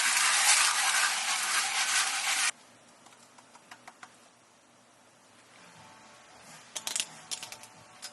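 A loud, steady hiss that cuts off suddenly about two and a half seconds in, followed by scattered light clicks and a few sharp clinks near the end.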